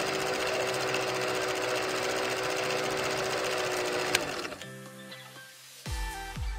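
A fast, even, machine-like rattle with a steady tone under it, stopping abruptly about four and a half seconds in. Soft music follows, with deep bass thuds coming in near the end.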